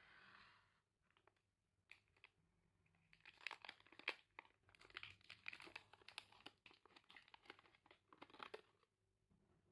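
Plastic snack-bar wrapper being handled and then torn open, crackling and crinkling densely from about three seconds in until it stops shortly before the end.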